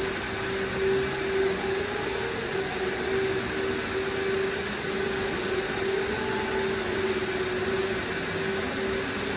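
Steady mechanical drone: an even rushing noise with a constant low hum through it.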